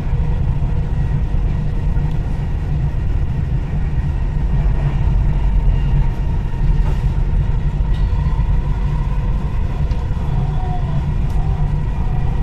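Dubai Metro train running between stations, heard inside the carriage as a steady low rumble with a faint steady whine above it.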